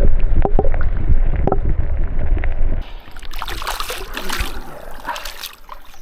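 Loud wind rumble on the microphone with handling knocks, cutting off abruptly about three seconds in to quieter splashing and crackling water.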